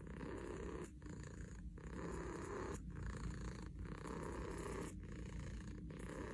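A domestic cat purring steadily as it is brushed, the purr broken by brief pauses about once a second.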